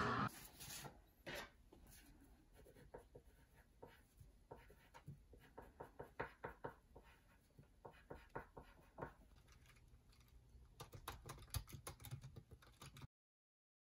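Faint scratching of a pencil on paper, with scattered light strokes and taps. About eleven seconds in it gives way to a quick run of laptop keyboard key clicks, which cuts off suddenly.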